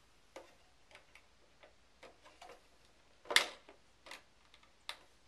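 Irregular light plastic clicks and taps as an RC truck's body shell is handled and fitted on the chassis, with one louder knock about three and a half seconds in.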